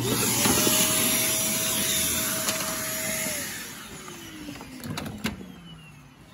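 Vacuum cleaner sucking dust out of an opened cord housing through a corrugated hose, starting abruptly with a steady whine and rushing air. About three seconds in it is switched off, and the motor winds down with a falling whine.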